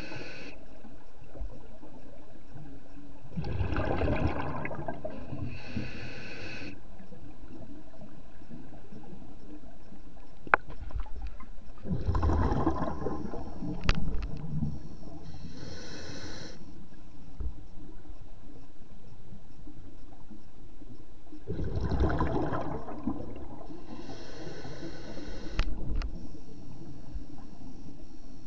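Scuba diver breathing underwater through a regulator: three breaths, each a low bubbling rush followed by a higher hiss, with a couple of sharp clicks in between.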